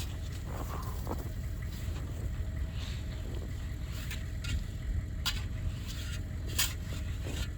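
Wind buffeting the microphone, with a few sharp scrapes and chops of a spade digging into hard-packed snow in the second half.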